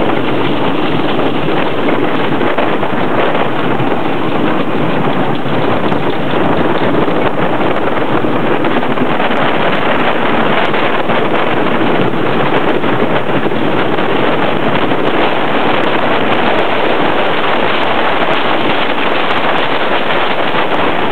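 Onboard a wooden roller coaster train running at speed: wind rushing over the microphone mixed with the train's steady rattle and clatter along the wooden track.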